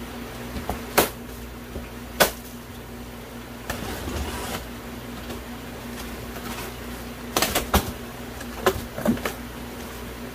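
Cardboard shipping box being cut open by hand: scattered sharp knocks and scrapes as the packing tape is slit and the cardboard flaps are pulled back, over a steady low hum.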